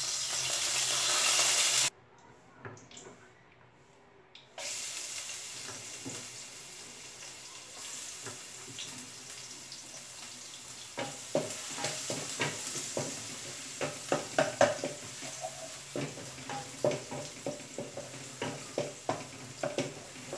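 A loud hiss for about two seconds as cooking oil goes into a hot frying pan, cutting off sharply. After a short pause, chopped garlic sizzles steadily in the oil, and from about halfway a spatula taps and scrapes against the pan as it is stirred.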